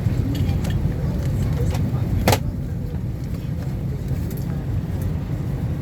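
Steady low rumble of an Airbus A320's cabin while parked at the gate, with a single sharp click a little over two seconds in.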